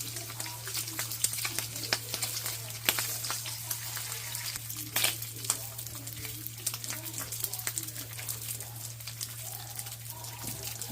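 Bacon frying in a cast-iron skillet: a steady sizzle of fine crackling pops, with a sharper pop about five seconds in. A low steady hum runs underneath.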